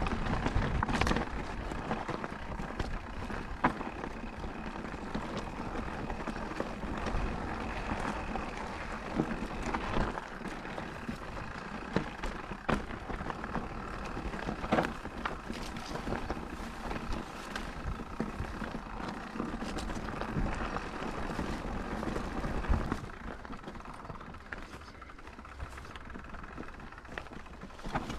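Mountain bike rolling down a dirt trail: a steady rush of tyre noise, with frequent sharp knocks and rattles as it rides over bumps, easing off a few seconds before the end.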